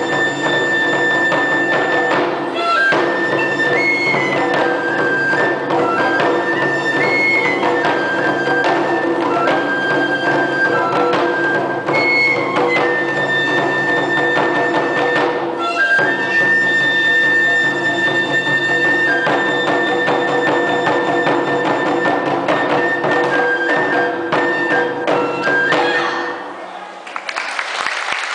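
Wadaiko music: a katsugi okedo daiko and a shime-daiko beaten in rhythm under a high fue (Japanese bamboo flute) melody, with steady lower sustained tones beneath. Near the end the music stops and applause begins.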